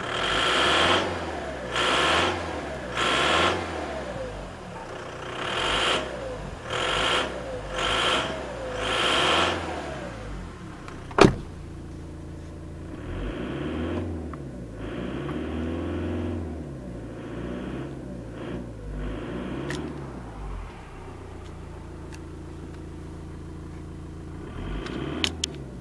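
Opel Vectra B 2.0 DTL turbodiesel engine revved in about eight short blips, then settling back with a few milder rises in revs before idling steadily, with a sharp click about eleven seconds in. The engine runs with its injection pump's timing advance device seized.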